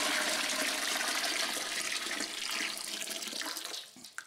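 Hot water poured from a pitcher into a stainless steel pot, splashing steadily, then tapering off near the end as the pour stops, followed by a single sharp click.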